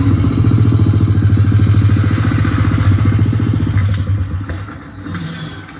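Motorcycle engine from a film soundtrack, played back through a small 2.1 computer speaker set with subwoofer: a fast, even low chugging for about four seconds, then fading as the engine dies down.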